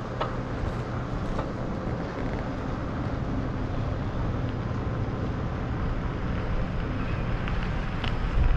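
Strong wind rushing over the camera microphone while cycling, a steady low rumble that gusts louder near the end.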